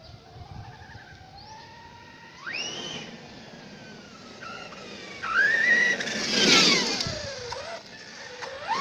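Redcat Kaiju brushless electric RC monster truck driving: its motor whine rises and falls in pitch as it speeds up and slows, loudest as it comes close about five to seven seconds in, with another short rise in pitch near the end.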